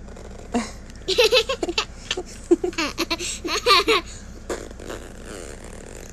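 A child laughing and giggling in a run of short, high-pitched bursts, from about a second in until about four seconds in.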